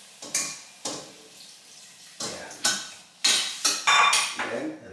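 Metal utensil clinking and scraping against a stainless steel cooking pot: a few separate clinks, then a quick run of louder clinks about three seconds in, some ringing briefly.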